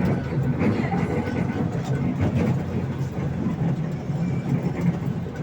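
Park toy train running, a steady low rumble.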